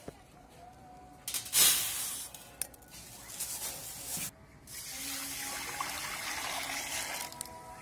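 Water poured from a pot onto dry rice in a stainless steel bowl, a steady splashing pour from about five seconds in to near the end. A shorter, louder rushing sound comes about a second and a half in.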